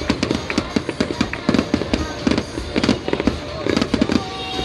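Aerial fireworks going off overhead in a rapid, continuous string of bangs and crackles.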